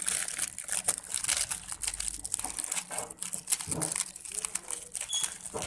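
Plastic packaging crinkling and rustling as it is handled close to the microphone, a dense run of small crackles.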